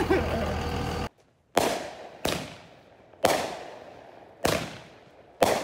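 Fireworks going off at night: five sharp bangs at uneven intervals, each with a fading echo. Before the first bang, about a second in, background music stops abruptly.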